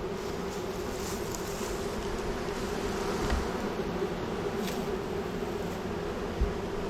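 A mass of honeybees buzzing in a steady hum at a newly installed hive, workers fanning at the entrance to signal that they have found a home. A brief low bump comes near the end.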